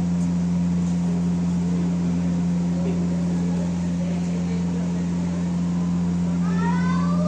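A steady low mechanical hum that holds constant throughout, with faint indistinct voices behind it and a short rising voice-like call near the end.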